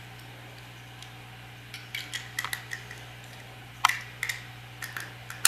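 Hard plastic LEGO pieces clicking and tapping as they are handled and fitted together. The light clicks start about two seconds in, with the sharpest near four seconds and one more at the end.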